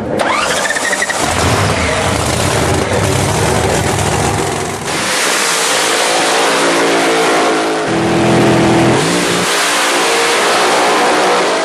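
Doorslammer drag racing car's engine firing up with a rising whine, then running loud and revving through a burnout and a launch down the strip.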